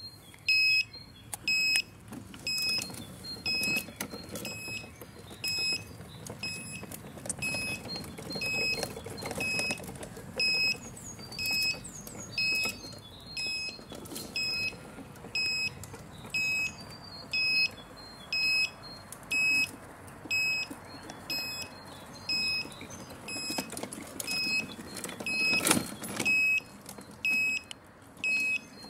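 Electronic beeper sounding short high beeps about once a second, over a low steady background noise. A brief loud knock comes near the end.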